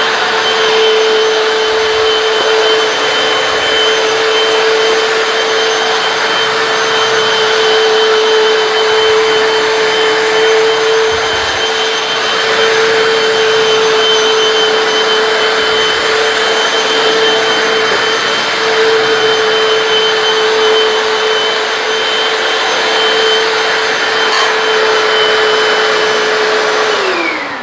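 Hoover PowerDash hard floor cleaner running steadily while wet-cleaning a floor: a constant motor hum with a higher tone above it. Near the end it is switched off and the motor winds down, its pitch falling.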